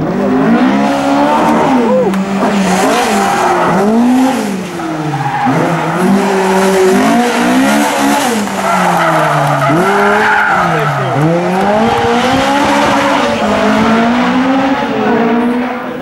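Rally car engine revving hard, its pitch climbing and dropping again and again as the driver accelerates, shifts and lifts, with tyre squeal as the car slides.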